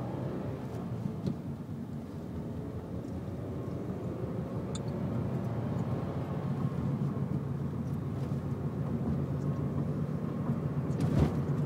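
Scion tC's engine and road noise heard from inside the cabin while driving, the engine pitch rising slowly as the car gathers speed. A single sharp thump near the end.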